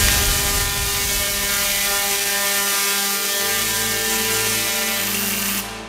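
Giant Tesla coil firing, its million-volt arcs discharging along a stream of water: a loud, harsh electrical buzz that starts abruptly and cuts off suddenly near the end.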